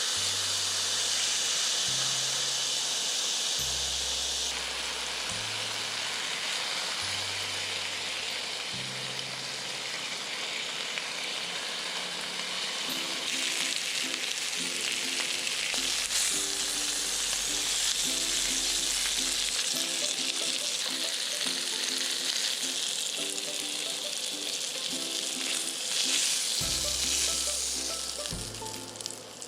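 Pork neck sizzling steadily as it grills, a loud even frying hiss, with background music under it.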